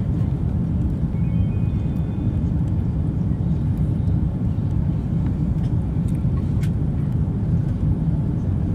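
Steady low rumble inside an airliner's cabin on approach: engine and airflow noise heard from a window seat.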